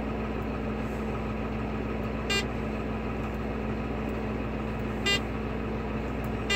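John Deere 8300T tractor's diesel engine running steadily, heard inside the cab. Three short electronic beeps from the AutoFarm GPS touchscreen as its buttons are pressed: about two seconds in, about five seconds in, and near the end.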